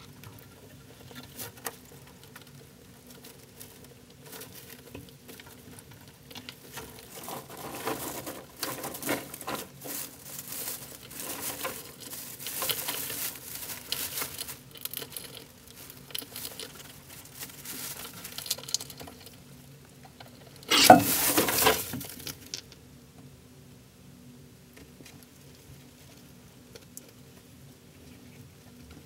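Pet rats scurrying and rustling through dry hay bedding, with irregular scratching and patter. A louder burst of rustling lasts a second or two about two thirds of the way through.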